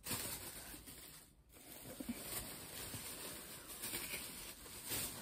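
Faint rustling and handling noise, with a few light knocks, as items are moved about off-camera.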